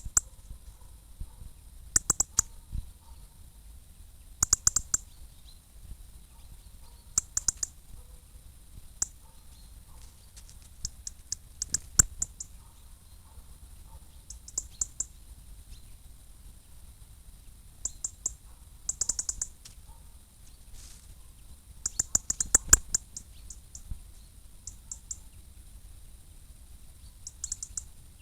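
Songbird alarm calls: short runs of sharp, high ticks, a burst every couple of seconds, loudest at about 12 s and again at about 19 and 22 s, given during a squabble between a blackbird and a robin.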